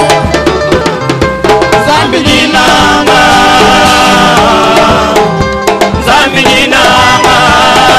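Live church worship music: a band with drums playing at a quick, even beat. Several voices sing along from about two and a half seconds in.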